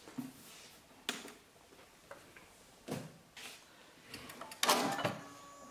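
Scattered clicks and knocks of hands handling a Juki UX8 computerized sewing machine, with a denser, louder clatter about four to five seconds in.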